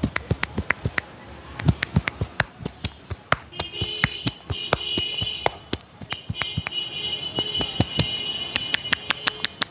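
Head massage: a barber's hands slapping and tapping on a client's head in a fast, steady rhythm of about four to five slaps a second.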